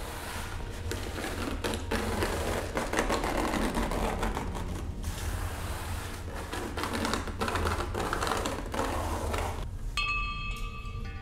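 Rapid, irregular clicking and clattering over a low steady hum. About ten seconds in the clicking thins out and a few held tones come in.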